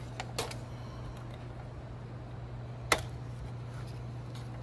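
Handling clicks and taps of a fireplace blower's sheet-metal housing and its speed controller: two light clicks near the start and one sharp click about three seconds in, over a steady low hum.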